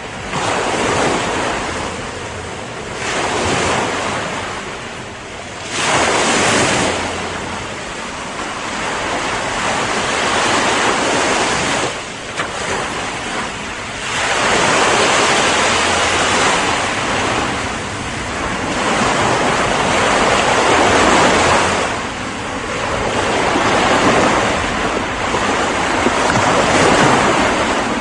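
Ocean surf: waves breaking and washing in, a continuous rush that swells and eases every few seconds.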